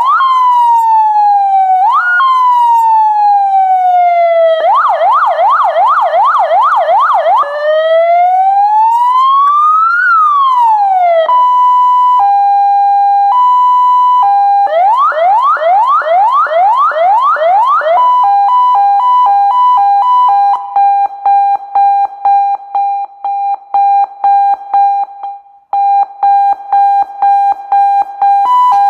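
MOCC Horn wireless electronic security siren sounding loudly and cycling through its tone patterns: falling wails, then a fast yelp of rapidly repeated rising sweeps, a slow rise and fall, a two-tone hi-lo alternation, a second yelp, and finally a long steady tone that starts pulsing rapidly about two-thirds of the way through.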